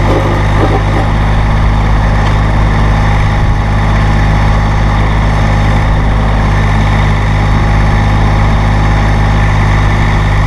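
Massey Ferguson GC-series sub-compact tractor's diesel engine running steadily.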